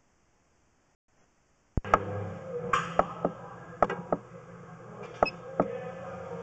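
Almost two seconds of silence, then a steady low hum with about nine sharp clicks and knocks at irregular spacing: sewer inspection camera equipment handled while the camera is pushed through the drain line.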